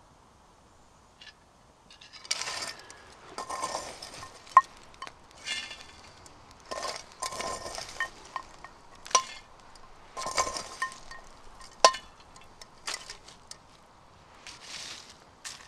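Metal cookware clinking and scraping: short bursts of scraping and rattling, broken by several sharp, ringing metal clinks.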